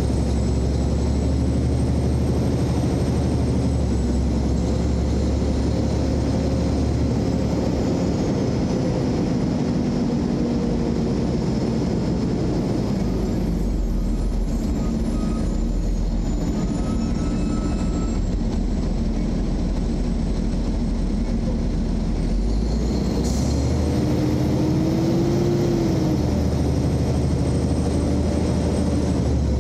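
Car engine and road noise heard from inside the cabin while driving at low speed, a steady low rumble with faint engine tones that rise and fall as the car speeds up and slows.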